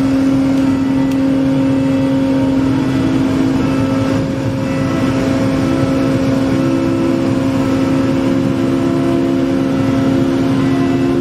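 MV Salish Orca's engines and shipboard machinery running with a steady loud hum as the ferry pulls away from the berth; a second, higher tone joins about six seconds in.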